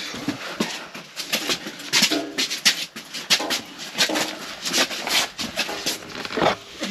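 Irregular knocks, clicks and rattles of a steel RSJ beam being carried by hand, picked up by a camera mounted on the beam as it jolts.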